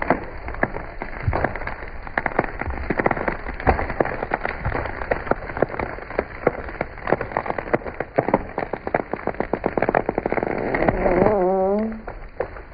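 Dense, irregular cracking and snapping of wood, like branches breaking as a tree is forced down through limbs. About eleven seconds in, a short pitched sound rises in pitch.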